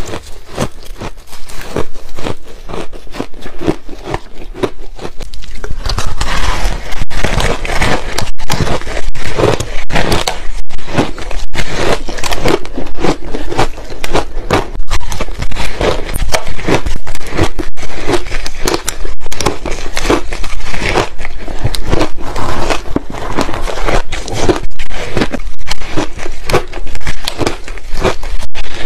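Biting and chewing of frozen ice, a dense run of crunches and crackles. For the first five seconds or so it is softer crunching of powdery freezer-frost ice. Then it turns into louder, busier crackly crunching of a block of coloured ice, bite after bite.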